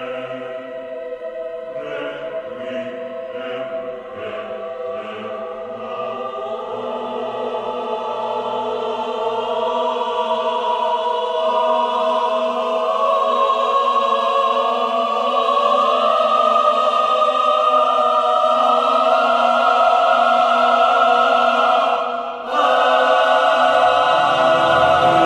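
Orchestral music with choir: held chords swell steadily louder, break off for a moment near the end, then come back in fuller with deep bass.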